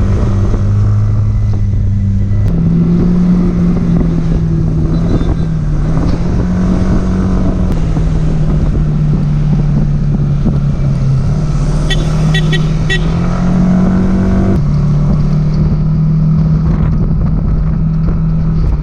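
A motor vehicle engine droning steadily while driving, its pitch stepping up and down a few times as speed changes. A short run of light ticks comes about twelve seconds in.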